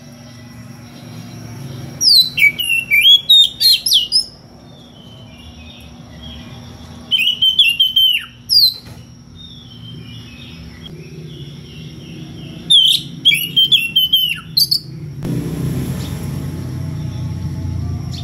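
Oriental magpie-robin (kacer) singing in full voice: three loud bouts of rapid, varied whistled and scratchy notes, each about two seconds long and spaced about five seconds apart. It is a territorial challenge song, given to call out a rival. A low hum rises near the end.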